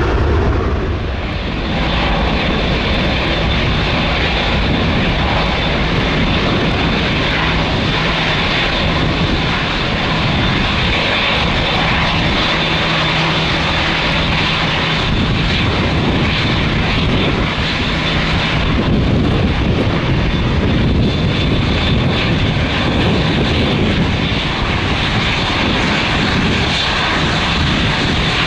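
Jet airliner engines running loud and steady, with a thin high whine held throughout.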